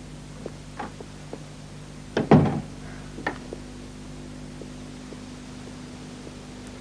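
A door thumps shut about two seconds in, with a few fainter clicks and taps before and after, over a steady low hum.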